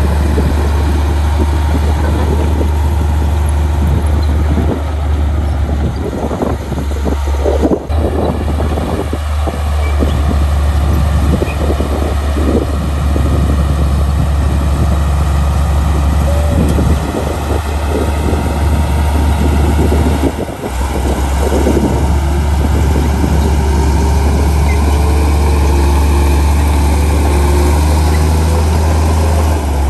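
Komatsu D53A crawler bulldozer's diesel engine running steadily with a deep drone while it pushes soil. Through the middle stretch there is irregular clanking and crunching from the tracks and from the dirt and rocks under the blade.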